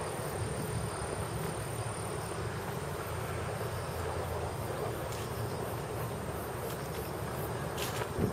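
Steady high-pitched insect chorus over a constant low rumble, with a faint click near the end.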